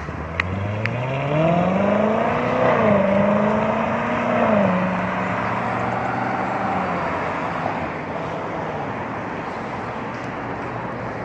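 A car engine accelerating away. The revs climb for a couple of seconds, dip at a gear change, then hold steady as the car drives off and fades away about eight seconds in, over a steady hum of traffic.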